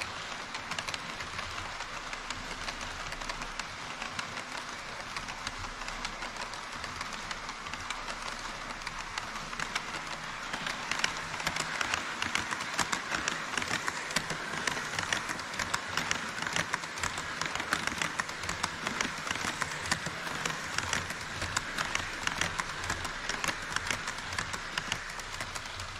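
HO scale model trains running on KATO Unitrack. A steady whirr of motors and wheels comes first, as a freight train of tank cars rolls past. About ten seconds in it gets louder, with a dense rapid clicking, as an E5 Series Shinkansen model passes close by.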